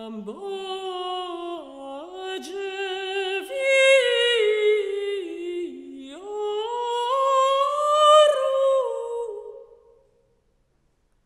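Solo unaccompanied female voice singing two slow, sustained phrases with vibrato, the pitch stepping and sliding up and down. It stops about ten seconds in.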